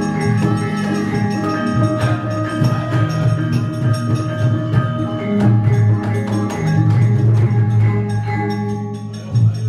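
Javanese gamelan orchestra playing: bronze metallophones and gongs ringing in overlapping sustained tones, with sharp knocks throughout, the dalang's keprak and dodogan marking the puppet movement.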